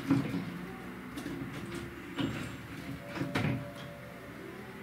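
Three dull knocks or clunks of things being handled: one right at the start, one about two seconds in, and a double knock about three and a half seconds in.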